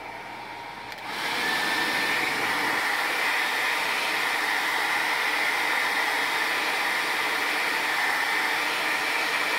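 Handheld blow dryer running with a steady rush of air and a faint high whine. It gets louder about a second in and then holds steady.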